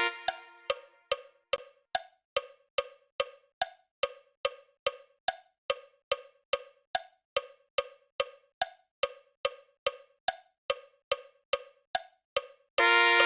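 Metronome click track with wood-block clicks about two and a half a second, every fourth click higher-pitched to mark the bar. A short held chord sounds at the very start, and sustained brass notes come in just before the end.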